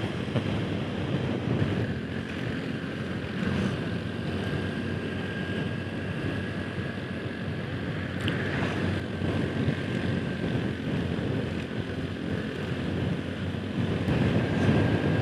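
Motor scooter riding along at steady speed, engine and road noise mixed with wind rushing over a clip-on microphone. A car passes about eight seconds in.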